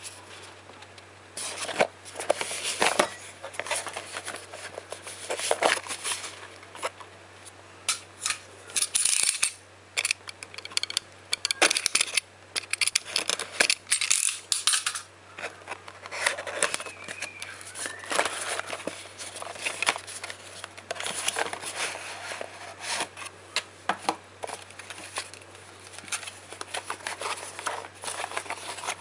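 Cardboard packaging of an AMD FX-8350 processor's retail box being handled and opened by hand: repeated scraping, tapping and rustling. A low steady hum runs underneath.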